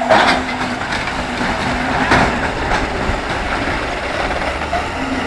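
Semi-truck's diesel engine running under load as the tractor-trailer climbs off a ferry ramp onto gravel, a steady engine and road noise with a single knock about two seconds in.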